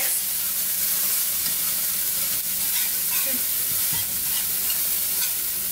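Scrambled eggs sizzling steadily in a frying pan on an electric stove burner, a continuous even hiss.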